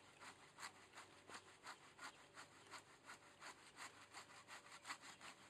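Hand saw cutting back and forth through a yucca trunk, a steady run of rasping strokes at about four a second.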